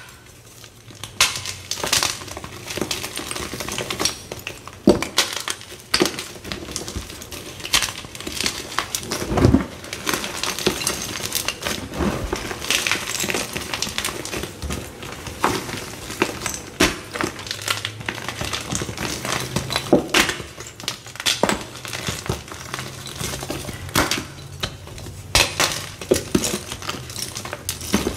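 Blocks of Z Athletic gym chalk (magnesium carbonate) crushed and crumbled between the fingers: an extra-crunchy run of crackles and crunches, with sharper snaps as chunks break apart, several times over.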